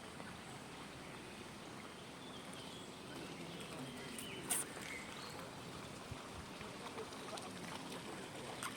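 Quiet outdoor ambience: a steady hiss with faint scattered chirps and one sharp click about four and a half seconds in.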